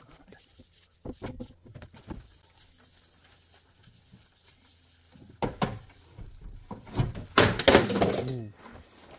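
Scattered knocks and clunks of handling, then a loud scraping rustle lasting about a second, starting about seven seconds in.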